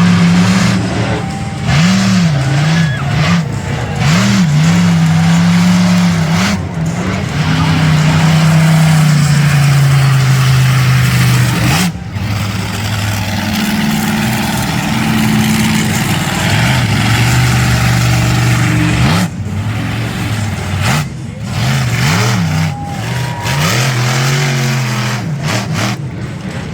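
Monster truck engine revving hard, its pitch repeatedly climbing and dropping as the throttle is blipped and held.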